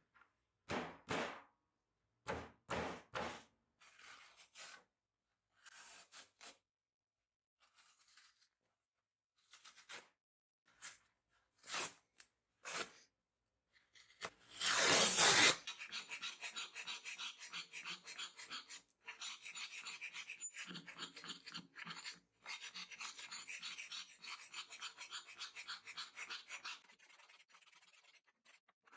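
Hand rubbing and scraping on the surface of a wooden board. There are separate short strokes at first, then one louder stroke about halfway, then fast, continuous back-and-forth scrubbing that drops to a faint rubbing near the end.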